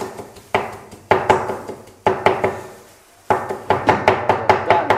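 Cleaver chopping boiled pork offal and throat cartilage on a round wooden chopping block: quick runs of sharp knocks, several a second, with a short pause about halfway through.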